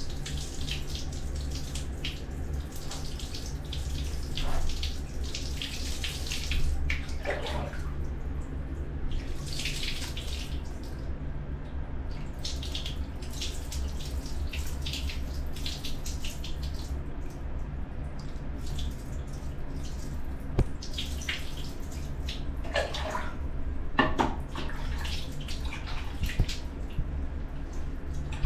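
Water poured from a plastic dipper over a baby monkey during its bath, splashing and running onto a tiled floor in repeated pours, over a steady low hum.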